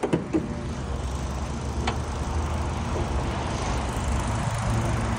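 Car hood being unlatched and raised on a 2010 Kia Soul: a few sharp clicks right at the start and one more about two seconds in, over a steady low vehicle hum.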